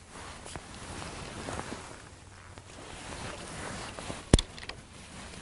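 A match rod and spinning reel being handled through a cast: soft rustling over steady wind noise, then one sharp click a little past four seconds in, followed by a few fainter ticks.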